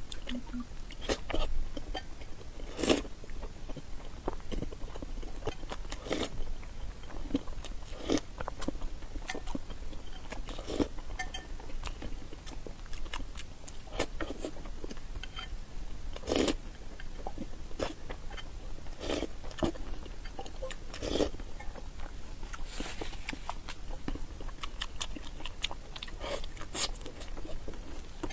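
Close-up eating sounds of whole peeled boiled eggs: wet chewing and mouth noises, with a metal spoon clicking and scraping against the ceramic bowl. Short, irregular clicks come every second or so.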